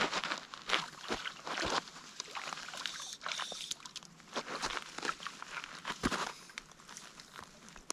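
Irregular splashing and rustling close to the microphone, a run of crackles and knocks with no steady sound, as a caught trout is handled at the water's edge.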